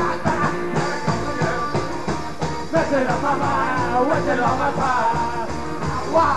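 Psychobilly band playing live: a man singing hard into the microphone over drums and cymbals.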